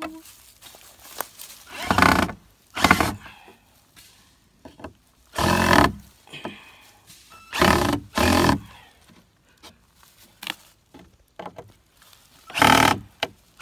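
Cordless drill driving screws into wood, the motor running in about six short bursts of under a second each, two of them close together.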